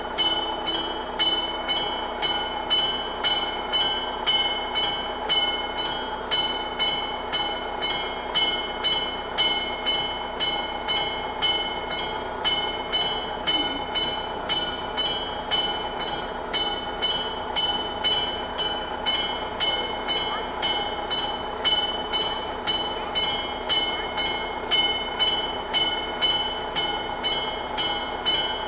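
Level-crossing warning bell of an AŽD 71 crossing signal (the classic mechanical bell) ringing steadily, about two strikes a second, each strike ringing on. It is the warning that a train is approaching the crossing.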